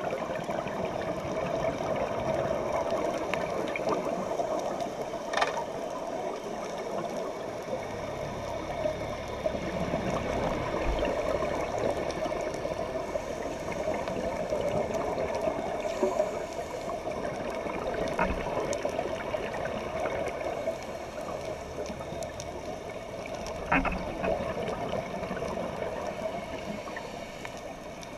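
Underwater sound picked up through a dive camera's housing: a steady muffled water rush with scattered faint ticks, and a sharper click about five seconds in and another near the end.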